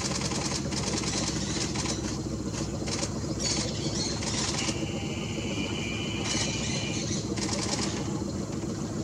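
Boat engine idling steadily, with a high buzzing that comes and goes several times over it.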